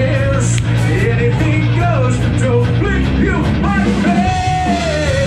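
Live rock band playing: a male singer over electric guitar, bass guitar and drums with steady hi-hat strokes. Near the end the singer holds one long note that dips slightly in pitch.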